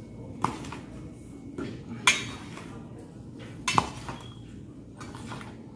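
Metal spoon knocking against the side of a stainless steel basin while mixing: three sharp ringing clinks, the loudest about two seconds in, with softer scraping between them.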